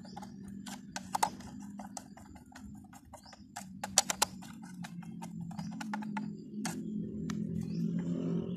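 A small screwdriver clicking and scraping in the screws of a hollow plastic toy as they are undone, with irregular sharp clicks and knocks of plastic, the loudest a little after a second in and a close pair about four seconds in.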